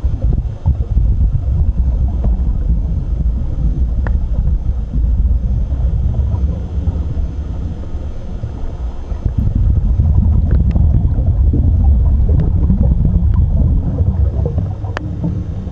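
Steady low rumble of wind and water noise aboard a boat, with a few faint clicks.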